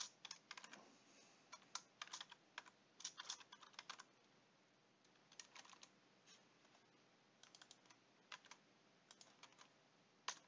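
Computer keyboard typing, faint, in short runs of keystrokes broken by brief pauses.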